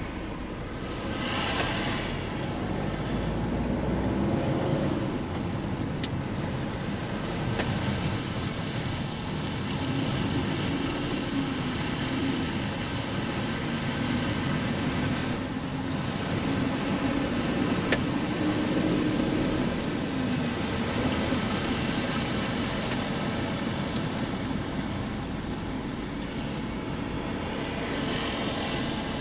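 A car driving: steady engine and road noise, with the engine note drifting gently up and down.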